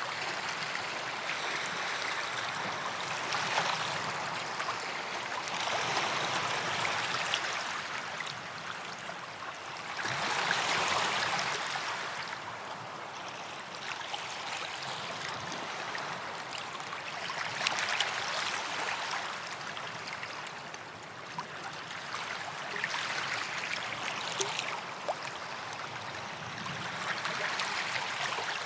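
Small sea waves washing onto a beach: a rush of surf that swells and draws back every few seconds.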